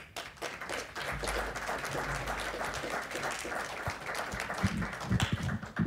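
Audience applauding, a dense patter of many hands clapping that starts just after the start and thins out near the end.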